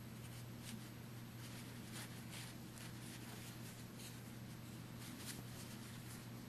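Faint rustling and scratching of cotton wool being pulled apart and pushed into a small fabric pillow with fingertips and the end of a pencil, a soft scrape every so often, over a steady low hum.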